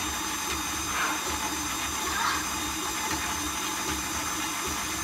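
Electric stand mixer running steadily, its wire whisk creaming butter and sugar in a glass bowl.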